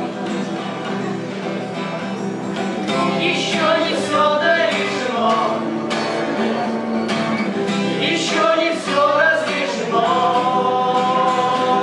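A song performed with guitar and a male voice singing. The singing comes in about three seconds in, and a long note is held near the end.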